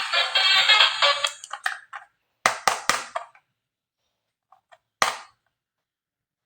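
A synthesized electronic tune stops about a second and a half in. It is followed by three sharp plastic clicks in quick succession and, a couple of seconds later, one more click, made by handling a plastic toy.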